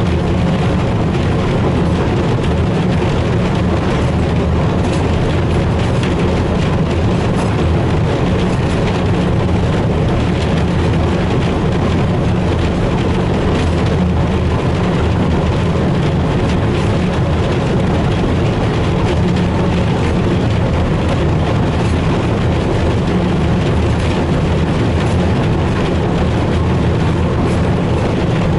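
Class 03 diesel shunter running along the line, its Gardner diesel engine and the wheels on the rails making a steady, unbroken noise.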